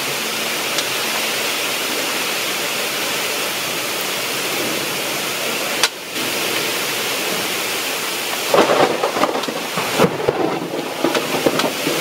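Heavy rain falling, a steady hiss that turns more uneven with many short louder patters in the last few seconds.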